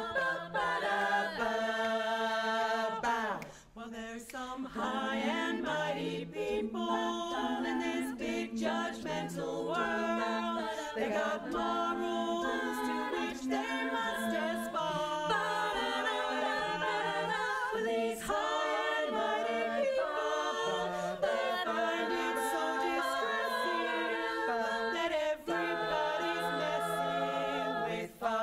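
Eight women singing a cappella in close barbershop harmony, with several sustained parts under a lead voice. The singing briefly breaks off about three and a half seconds in.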